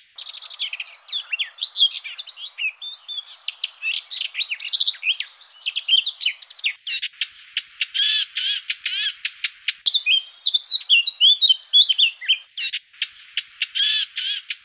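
Eurasian blackcap singing: a fast, varied warbling song, broken about halfway through and again near the end by quick runs of short repeated notes.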